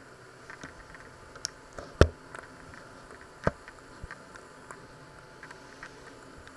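Scattered clicks and knocks of objects and the camera being handled, the loudest a sharp knock about two seconds in and another about a second and a half later, over a faint steady hiss.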